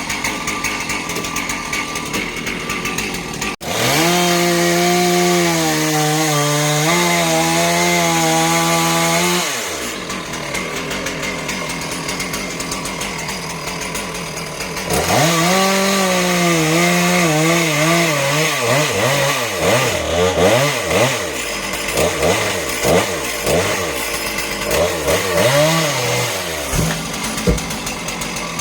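Two-stroke chainsaw run up to full throttle for about six seconds and then dropping back. It revs up again about fifteen seconds in, followed by a string of quick throttle blips that rise and fall in pitch.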